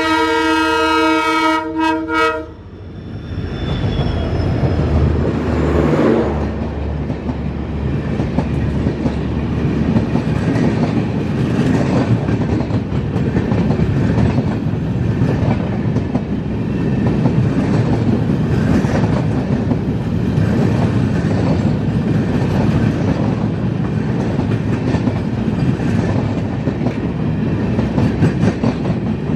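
WDP4B diesel locomotive sounding its multi-tone horn, which cuts off about two and a half seconds in, then the locomotive passing close. The train's LHB coaches follow, rolling past at speed with a steady wheel rumble and clickety-clack over the rail joints.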